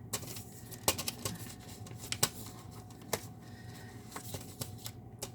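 Light, irregular clicks and rustles of paper posters and plastic disc packaging being handled.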